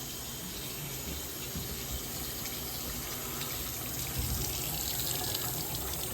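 Bathroom sink faucet running water into the basin, a steady rush, cut off just after the end.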